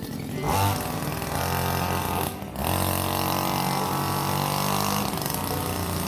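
A small engine running steadily, briefly dropping out about two and a half seconds in.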